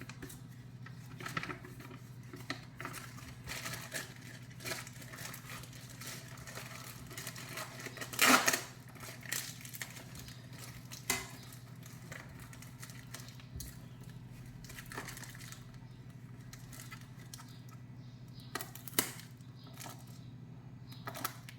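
Handling of a taped package of car stabilizer links: plastic and tape rustling and crinkling, with scattered clicks and knocks, the loudest about eight seconds in, over a steady low hum.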